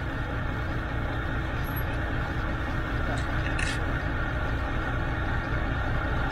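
Steady rumble of a dive boat's engine running, with a brief crinkle of plastic film about three and a half seconds in as an onigiri wrapper is pulled open.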